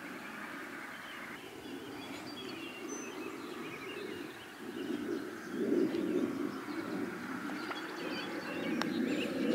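Outdoor ambience: small birds chirping over a steady low noise that swells a little about halfway through.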